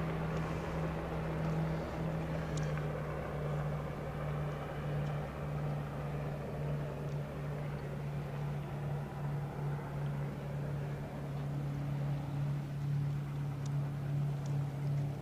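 A steady low engine drone, with a hum that pulses slightly, and a few faint clicks.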